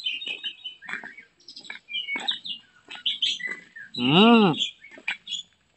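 Small birds chirping in quick, short notes. About four seconds in comes one loud drawn-out call that rises and then falls in pitch.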